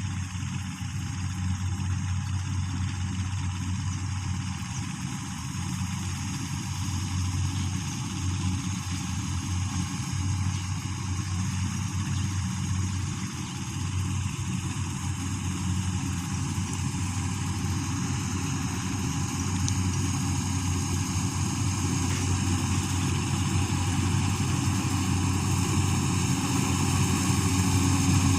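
Combine harvester's diesel engine running steadily, with a low hum and a wide mechanical noise that grows slightly louder near the end.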